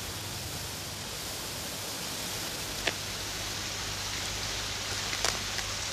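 Steady hiss with a low hum underneath, the noise floor of an old TV film soundtrack, broken by two faint clicks, about three and five seconds in.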